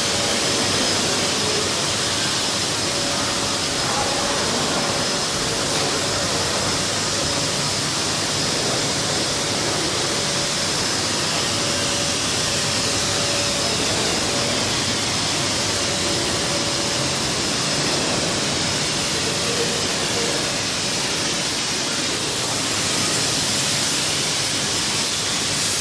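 Electric air blower running, a steady rushing of air with a faint constant whine, the kind used to inflate and hold up PVC inflatable tents.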